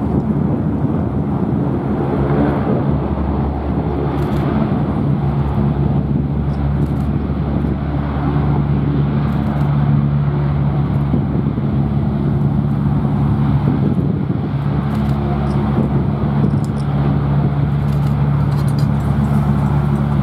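Twin Allison T56 turboprop engines of an E-2C Hawkeye running at taxi power, a steady drone with a low, even propeller hum.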